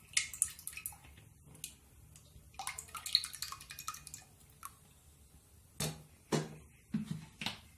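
Cooking oil poured from a plastic bottle into a stainless steel pot, the thin stream trickling and splashing. A few sharp knocks near the end as the bottle is handled.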